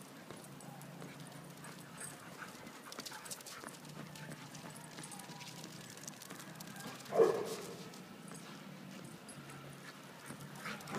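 Dogs and a person running on concrete, with quick footfalls and paw steps patting throughout. About seven seconds in there is one short, loud dog bark.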